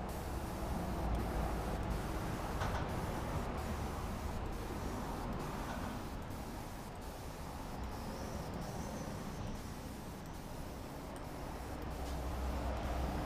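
Bottom-feed airbrush hissing steadily as it sprays paint, fed by an air compressor set to about 10 psi, with a low rumble underneath.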